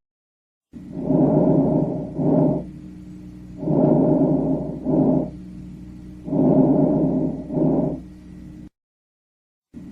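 Lung breath sounds heard through a stethoscope: three breathing cycles, each a longer breathy sound followed by a shorter one, about every two and a half seconds, cut off briefly near the end.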